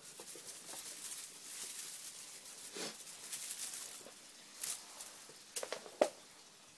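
Kittens shifting about behind a wire-mesh gate: soft rustling, then a few sharp taps of paws and claws on the mesh and wooden floor in the last couple of seconds.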